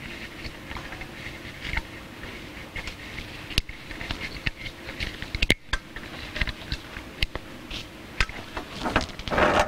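Scattered small clicks and knocks of hands working on a Watkins No Fault spa heater assembly, pulling its thermistor sensors and wiring free, with a brief rustle near the end.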